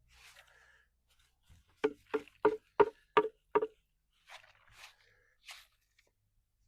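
Six quick, sharp knocks of a hard tool on a hard surface, about three a second, followed by a few short scraping strokes.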